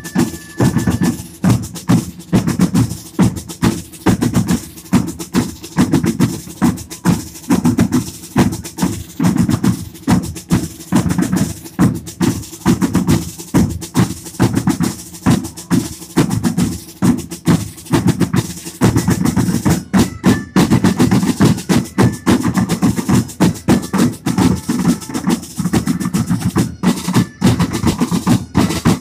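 A group of side drums beating a steady marching rhythm, several strokes a second, with rolls.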